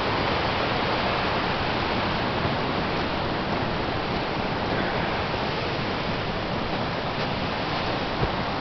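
Steady rushing of a waterfall and its creek. A single short knock near the end.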